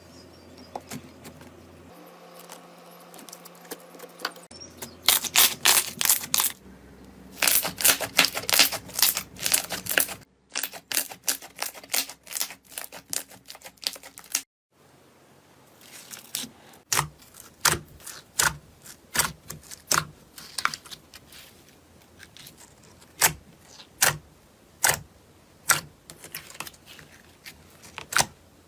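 Slime being squeezed and pressed by hand, giving runs of sharp crackling clicks and pops, in several short clips that change abruptly every few seconds.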